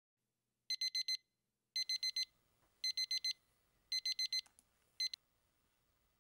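Phone alarm beeping in high-pitched groups of four quick beeps, about one group a second, starting under a second in. It cuts off after the first beep of the fifth group as the alarm is stopped.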